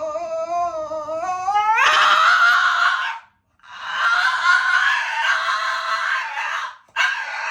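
French bulldog howling: a pitched howl that rises for about two seconds, then breaks into harsh, rough howls in long stretches with two brief pauses between them.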